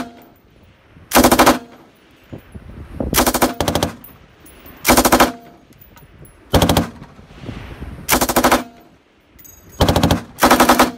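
M249 belt-fed light machine gun firing controlled short bursts of about five to seven rounds each, about seven bursts spaced a second or two apart, with two bursts close together near the end.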